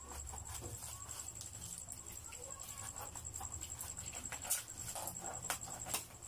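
Plastic parcel wrapping crinkling and crackling as it is pulled and torn open, in irregular sharp crackles.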